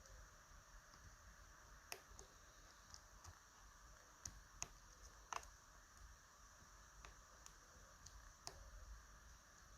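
A lock pick working the pins of a TESA T-12 lock cylinder: a few faint, short metallic clicks at irregular intervals, as the top row of pins is picked.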